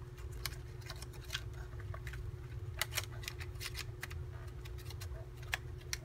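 Small paper cards and cut-outs being flicked through and shuffled in a clear plastic organizer tray: scattered light clicks and paper rustling, with a few sharper taps about three seconds in and one near the end, over a steady low hum.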